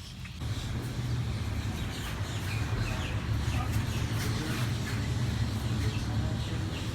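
Birds chirping in short, falling calls over a steady low rumble that starts about half a second in.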